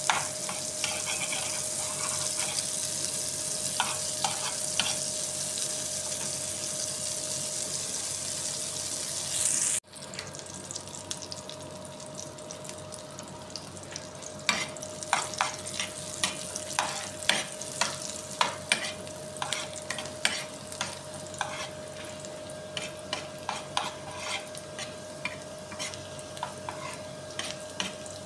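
Butter sizzling in an aluminium frying pan while a metal spoon stirs and clicks against the pan. About a third of the way through, the sizzle suddenly drops quieter, and from then on the spoon's clicks stand out over it.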